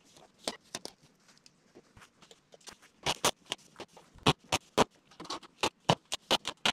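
A run of irregular sharp taps and crackles, thickest in the second half: hands pressing and smoothing tape along the seams of building wrap stretched over the wall frame.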